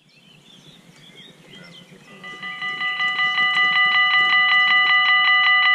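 Dutch level crossing warning bell ringing: fast, evenly repeated dings, about seven or eight a second, swelling in over the first two seconds and then ringing steadily at full loudness.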